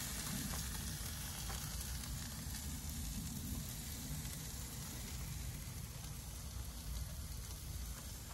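Sea bass fillets and chicken drumsticks sizzling steadily on an open barbecue grill as lemon juice is squeezed over them, with a low steady rumble underneath.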